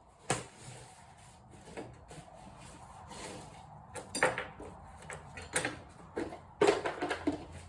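Metal cans full of bolts being moved and set down on a workbench: a handful of clunks and knocks with a little rattling, the loudest cluster near the end.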